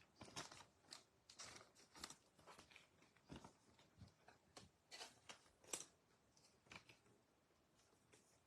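Faint, irregular clicks and rustles of baseball trading cards being handled and sorted into piles, thinning out near the end.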